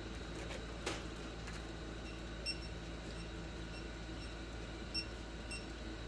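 Steady low room hum with a few faint, short electronic beeps at irregular intervals and a single soft click about a second in.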